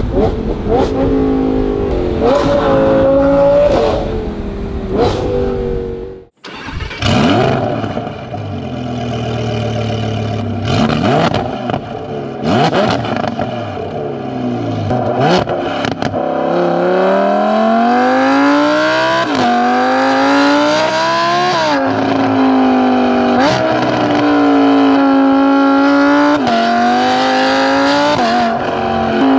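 Audi R8's V10 with a titanium valved exhaust and equal-length headers, pulling hard through the gears. It is heard first from inside the cabin, then from right at the bumper. After the break, the engine note climbs steadily and falls sharply at each upshift, several times over.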